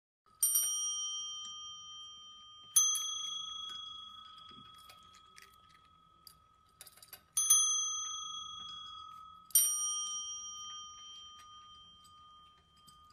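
Chrome desk service bell struck four times by a cat's paw, each ding ringing out and fading before the next; the cat rings it to ask for food.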